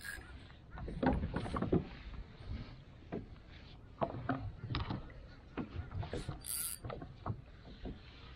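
Irregular knocks and clicks of fishing rods and tackle being handled aboard a fishing kayak, over a steady low rumble. A brief high hiss comes about six and a half seconds in.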